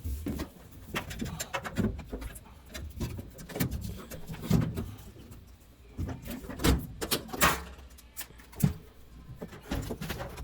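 Irregular plastic and metal clicks, knocks and thuds as a washing machine's drain pump assembly is worked loose and slid out of the cabinet.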